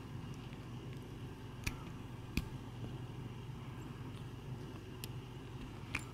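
Zipper on a fabric cushion cover clicking as a cat bites and tugs at it: four short sharp clicks, the loudest about two and a half seconds in, over a steady low hum.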